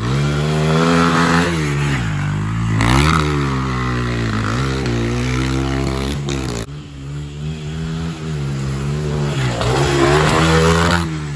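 Honda XR100 dirt bike's small single-cylinder four-stroke engine revving up and down as it is ridden over a dirt trail, the pitch rising and falling with the throttle. About two-thirds of the way through it drops away suddenly, then builds again and is loudest near the end as the bike passes close.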